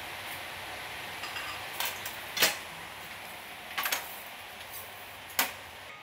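A few sharp clicks and knocks of dishes and containers being handled at a restaurant counter, four in all, the loudest about two and a half seconds in, over a steady background hiss.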